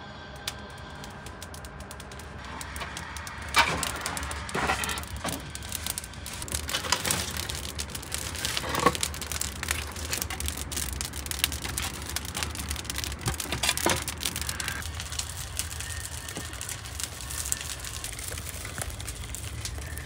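Wood fire crackling and popping in a tandoor as scrap planks burn. Now and then there are sharper knocks as boards are pushed into the oven, the loudest about three and a half seconds and nine seconds in.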